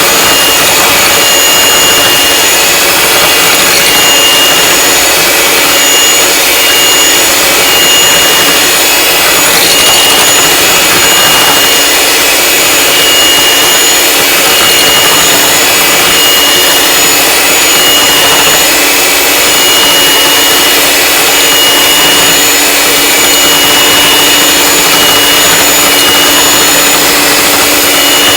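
Electric mixer running steadily with a constant high motor whine as its beater whips egg whites to a froth.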